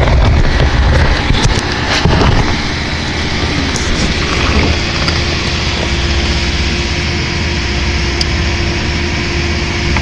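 Ford car engine running at idle, a steady hum with a constant tone, with some louder handling noise and clicks in the first couple of seconds.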